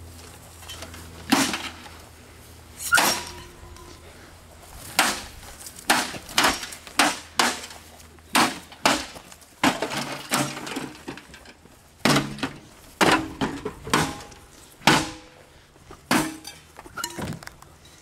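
The sheet-metal casing of a wrecked microwave oven being struck again and again: about twenty sharp, irregular bangs, some coming in quick pairs and a few ringing briefly.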